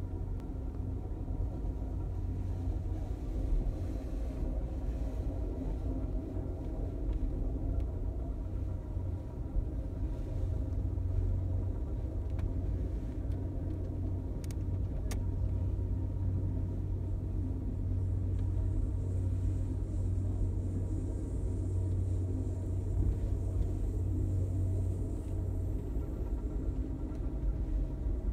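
Moving passenger train heard from inside the car: a steady low rumble of the wheels and running gear on the track, with two brief clicks around the middle.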